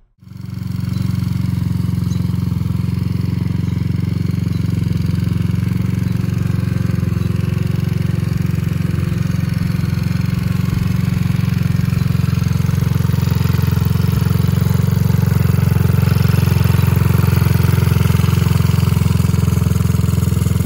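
Taotao Pony50's 50cc four-stroke scooter engine (139QMB, GY6-type) running steadily and loud, growing slightly louder as it goes. It comes in suddenly at the start.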